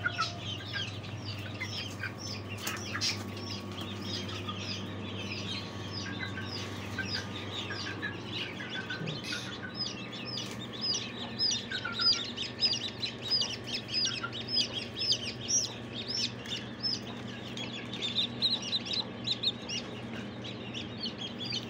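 A brood of newly hatched chicks peeping: rapid, high, overlapping cheeps that grow thicker after about eight seconds, over a steady low hum.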